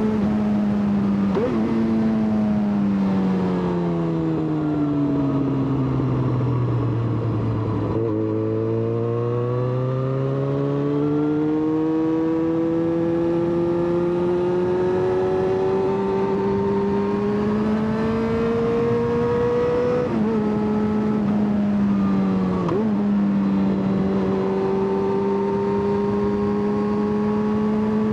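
Yamaha XJ6's inline-four engine heard from the rider's seat. The revs fall for several seconds as the bike slows, then climb steadily for about twelve seconds under acceleration. Two quick gear changes come about two-thirds of the way through, and then it runs at steady revs.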